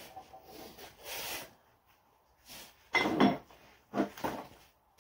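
Steel parts being handled on the bed of a shop press: a few short metal-on-metal scrapes and knocks, the loudest about three seconds in.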